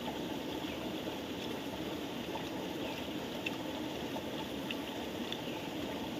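Steady rush of running water, like a nearby stream, with a few faint light clicks over it.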